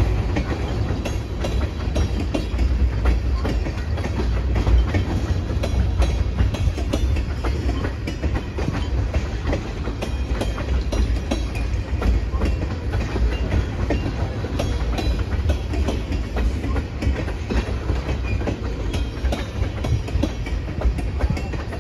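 Freight train of tank cars rolling past at steady speed: a continuous low rumble with rapid clicks as the wheels cross rail joints.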